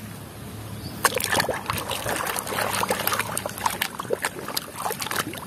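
A hand swishing and scrubbing a muddy plastic toy in a basin of soapy water: irregular splashing and sloshing that starts about a second in.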